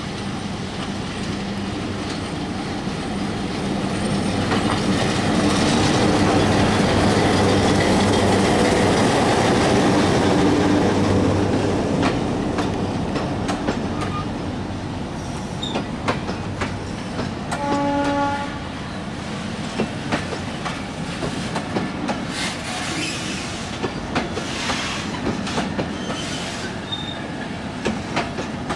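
Diesel locomotive's engine running loudly as it draws near and passes, followed by a long string of oil tank wagons rolling by with wheels clicking over the rail joints. A short horn blast sounds about two-thirds of the way through, and the wheels give brief squeals near the end.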